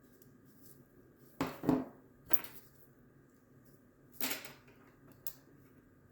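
Small hard objects clattering on a workbench: a few short knocks and clinks, the loudest pair about a second and a half in, then single ones over the next few seconds.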